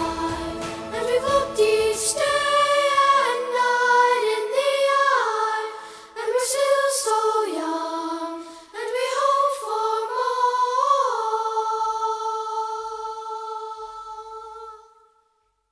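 Background music of layered singing voices in harmony; the low accompaniment drops away after the first few seconds, and the voices end on one long held chord that fades out near the end.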